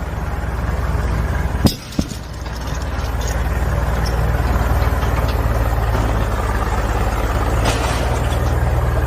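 Excavator diesel engine running steadily with a low hum, broken by a sharp knock and a brief dip in sound about two seconds in.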